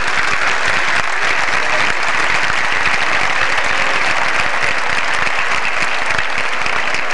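A large audience applauding steadily, a dense, even clatter of many hands clapping.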